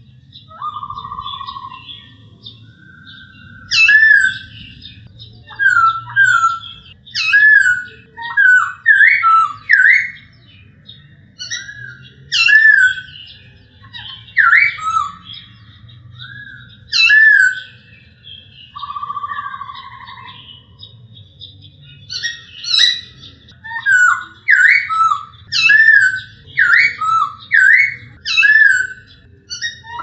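Male black-throated laughingthrush (Poksay Hongkong) singing: loud, clear whistled notes that swoop up and down, given in quick runs. Twice, about a second in and again near the middle, it gives a longer, lower burry note.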